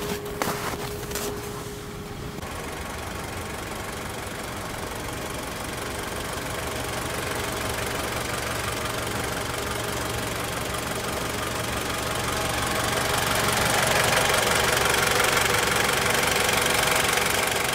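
Mitsubishi ASX's 2.0-litre 4B11 MIVEC inline-four idling steadily under the open hood, louder in the second half. A few sharp clicks in the first two seconds.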